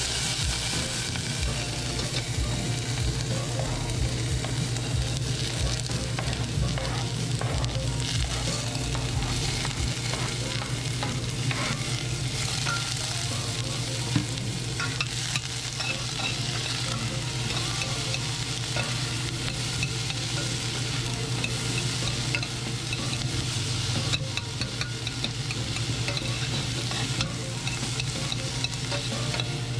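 Chopped onion, garlic and bell peppers sizzling in a stainless steel saucepan, with a metal slotted spoon stirring and clinking against the pan. A steady low hum runs underneath.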